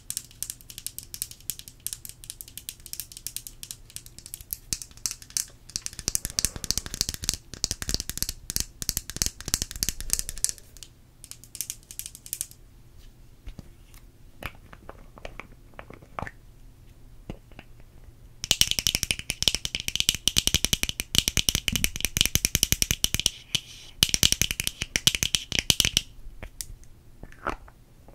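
Long fingernails tapping rapidly on a small pink plastic object held right at the microphone. A fast run of taps for the first ten seconds, a few scattered taps, then a louder fast run with a bright ring to it that stops a couple of seconds before the end.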